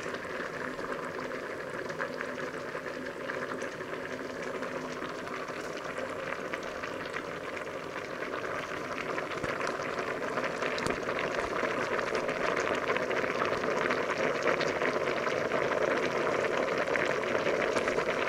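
Water with spaghetti at a rolling boil in a large stainless steel pot: a steady bubbling hiss dotted with many small pops. It grows louder about halfway through.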